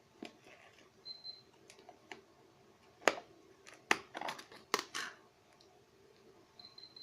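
Purple slime being squished and pulled by hand, giving irregular sticky clicks and pops, the loudest about three, four and nearly five seconds in.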